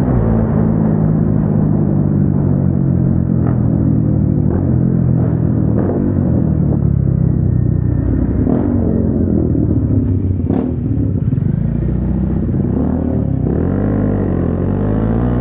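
Single-cylinder sport motorcycle engine running through an aftermarket exhaust. It holds fairly steady revs with a few sharp cracks along the way, then rises and falls in pitch as it revs near the end.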